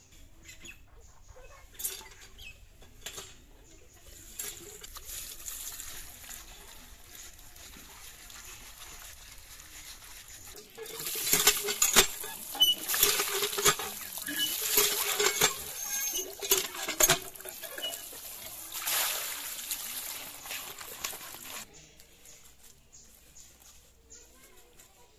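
Water from a hand pump pouring and splashing onto pieces of cut snakehead fish in a plastic basket. The flow is loud and uneven for about ten seconds in the middle, then stops suddenly.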